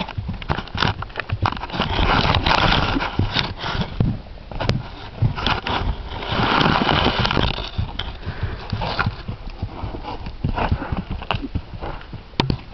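A Thoroughbred gelding cantering on grass under a rider: irregular, dull hoofbeats, with louder noisy stretches about two and six seconds in.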